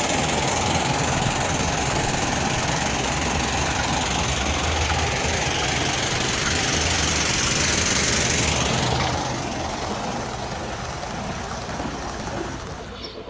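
Gauge 1 model train running along garden-railway track, a steady noisy rumble with hiss that grows quieter from about nine seconds in.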